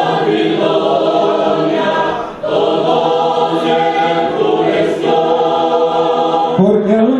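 Church choir singing a Spanish-language hymn, the voices holding long notes with a short break about two and a half seconds in. Near the end the sound changes as a lower voice line comes in.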